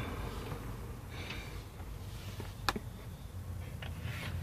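Quiet room tone with one sharp click a little past the middle and a couple of fainter clicks around it, the light knocks of things being handled at close range.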